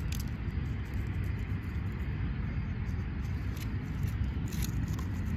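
Steady low background rumble with a few faint light clicks.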